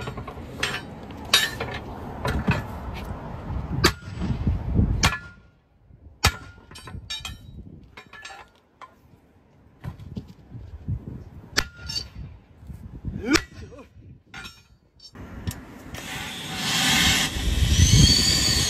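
Sledgehammer striking a steel truck wheel rim and tyre bead, ringing metallic clangs at irregular intervals. In the last few seconds, compressed air hisses loudly through an air hose chuck on the valve stem as the tyre is inflated.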